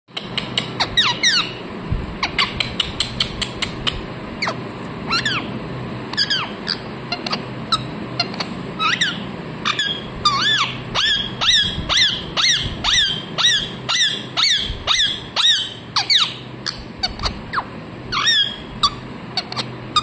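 Rose-ringed parakeet giving a long run of short, sharp, high-pitched chirping calls, coming quickest in the middle.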